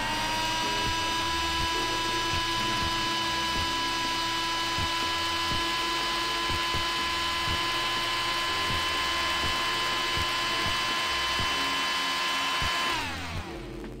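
Electric nail drill running at steady high speed, a constant high whine. It settles to speed at the start and winds down about a second before the end.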